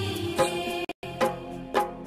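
Background music with steady percussion hits; it cuts out for a split second about halfway through, then carries on.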